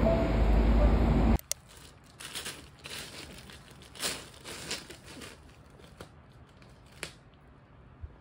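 Background music that cuts off abruptly about a second in, then a bichon chewing and tearing at a plastic ice pack: irregular crinkling and crackling of plastic with a few sharp clicks.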